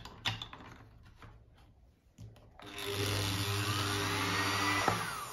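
The small electric motor of an overlock sewing machine runs with no drive belt fitted, starting about two and a half seconds in. It gives a steady hum with a whine that rises and falls in pitch as the speed changes, with a click near the end. Knocks from the motor being handled come in the first moment. This is a motor that keeps working loose from its mount.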